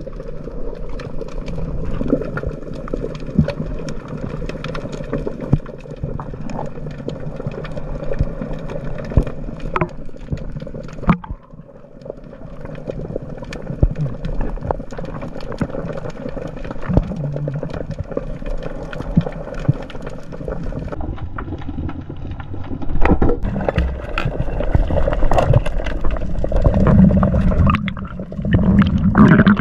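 Underwater ambience picked up by a submerged camera: a steady low rumble scattered with many small clicks and crackles, growing louder and rougher over the last several seconds.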